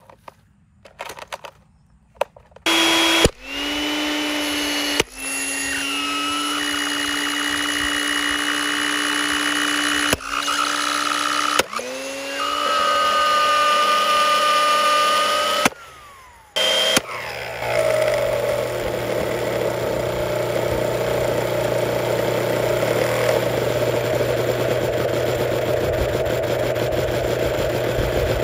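Hamilton Beach 10-speed blender motor running with no jar on, a steady whine that cuts off and starts again several times, rising in pitch as it spins up. From about two-thirds of the way in it settles into a rougher, noisier running sound. A few faint clicks come before it first starts.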